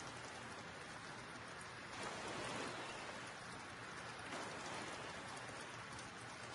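Steady rain, an even hiss that swells slightly about two seconds in and again a little after four seconds.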